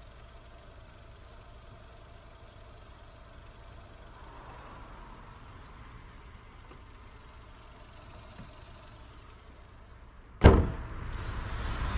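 Bonnet of a 2002 Skoda Octavia slammed shut near the end, one sharp loud bang over a faint low rumble, followed by a rising rush of noise.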